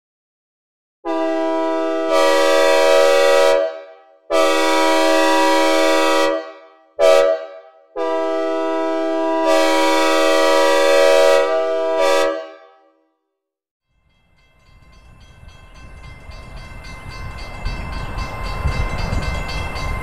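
Synthesized recreation of a Nathan K5L air horn as on an Amtrak P42DC locomotive, sounding a long, long, short, long pattern with a reverb tail; the first and last long blasts get louder partway through. After a brief silence, a low rumble of an approaching train begins and builds steadily, with faint horn tones over it.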